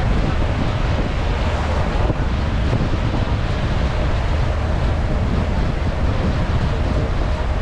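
Wind rumbling on the microphone on the stern of a moving ferry, over the rushing of its churned-up wake and a faint steady engine hum.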